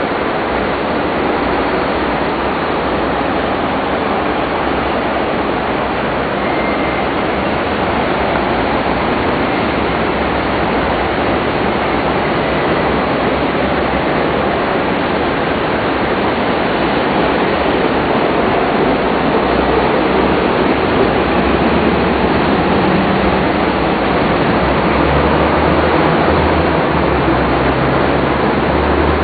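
A steady, even rushing noise that grows slightly louder toward the end, with a low rumble coming in near the end.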